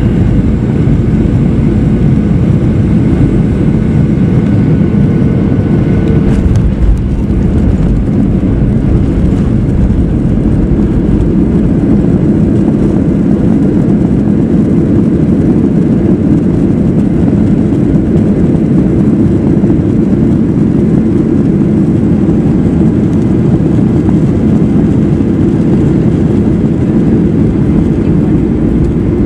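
Boeing 737 cabin noise heard from a window seat over the wing: a loud, steady low rumble of the engines and airflow as the airliner rolls out on a wet runway after landing. A faint steady hum stops about six seconds in.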